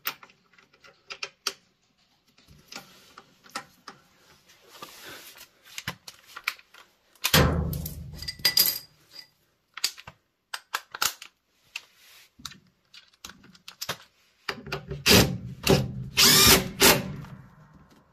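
Cordless driver running in two bursts, the first about seven seconds in and a longer one near the end, as it runs in the fasteners that hold a new rotor on the direct-drive motor of a Maytag Bravos XL washer. Light clicks of handled parts come before and between the bursts.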